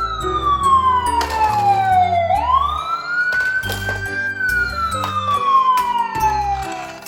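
Fire engine siren wailing in a slow cycle: the pitch falls, rises quickly about two seconds in, holds briefly, then slides slowly down again until near the end. Background music plays beneath it.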